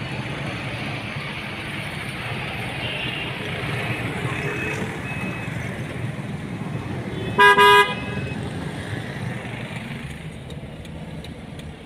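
Steady road traffic noise from cars and motorcycles. About seven and a half seconds in, a vehicle horn gives two short, loud honks in quick succession.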